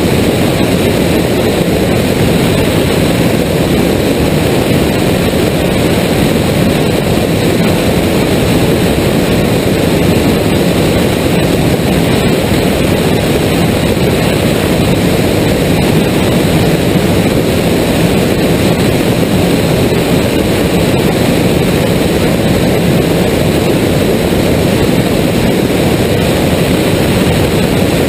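Steady drone of a light aircraft's engine and propeller in level cruise, an Evektor EV-97 Eurostar SL with its Rotax 912 flat-four, heard from a camera on the airframe with airflow rushing over it.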